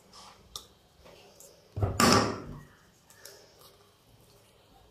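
Chopped vegetables tipped from a plastic bowl into a glass bowl, with small clicks and one loud clattering knock about two seconds in.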